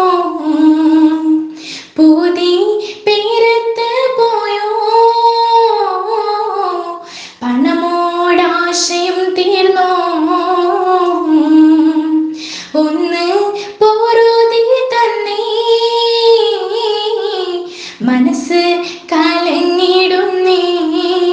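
A woman singing a Mappila kathu pattu (letter song) in Malayalam, in long ornamented phrases with short breaks for breath between them.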